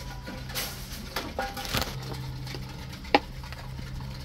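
Reverse vending machine taking in an aluminium drinks can: a steady low motor hum with light rattling and clatter as the can is drawn in, and one sharp click a little over three seconds in.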